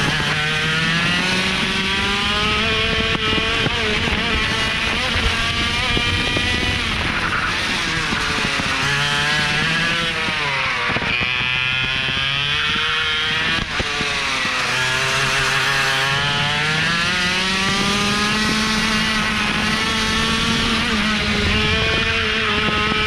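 IAME X30 125cc two-stroke kart engine at racing speed through a lap, its pitch climbing steadily on the straights and dropping sharply off the throttle for corners several times.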